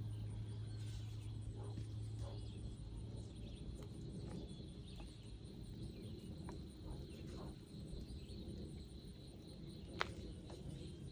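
Insects calling in one steady, high, continuous tone, with faint scattered soft ticks and one sharp click about ten seconds in. A low hum underneath fades out about three and a half seconds in.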